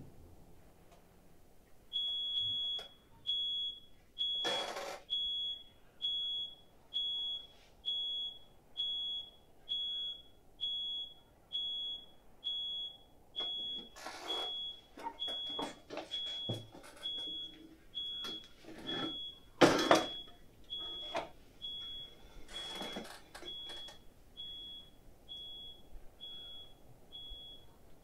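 A single high electronic beep repeating evenly, a little faster than once a second, starting about two seconds in. A few short rushes of hissing noise cut across it, the loudest about two-thirds of the way through.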